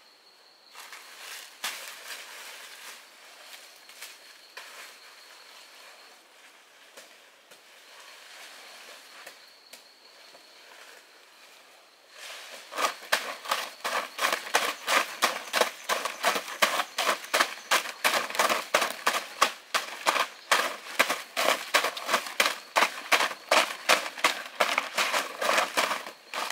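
Rapid, loud snapping and crackling of plant material being broken and torn, about three or four snaps a second, starting about halfway through. Before that there are only faint twig crackles and an insect's thin, steady high buzz that comes and goes.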